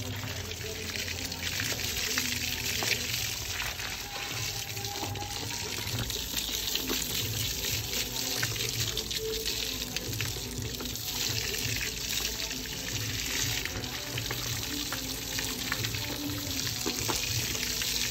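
A steady stream of water from a pipe pouring and splashing onto water buffaloes as they are washed down.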